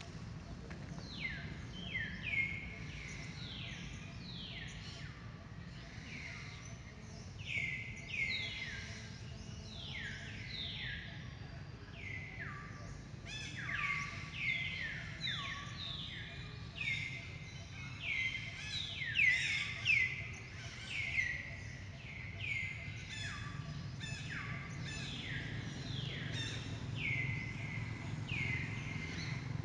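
Many short, high-pitched animal calls, each sliding down in pitch, repeated irregularly throughout and thickest in the second half, over a steady low hum.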